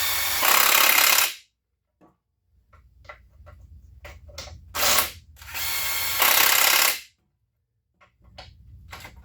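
A handheld power tool runs bolts in, in short bursts: one run ends about a second and a half in, then there is a brief blip and a longer run near the end. Each run steps up in speed partway through.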